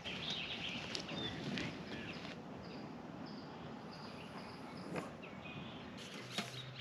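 Outdoor ambience with birds chirping, over a rustling background with a few sharp clicks and knocks.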